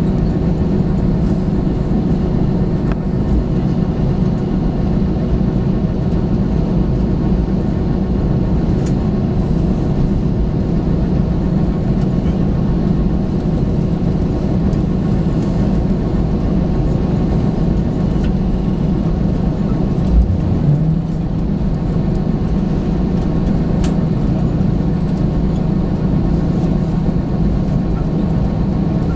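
Steady drone of an Airbus A321 heard from inside the cabin: engine and airflow noise. A brief low thump comes about two-thirds of the way through.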